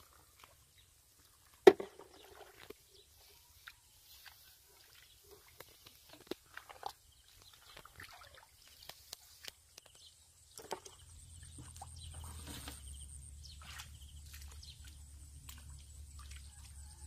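Scattered short splashes and squelches of feet and hands working through shallow mud and water, with one sharp knock about two seconds in. From about eleven seconds a low steady rumble sets in underneath.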